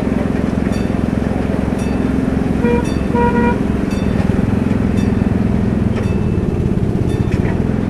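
An engine running steadily, with two short horn toots close together about three seconds in. A faint tick repeats roughly once a second.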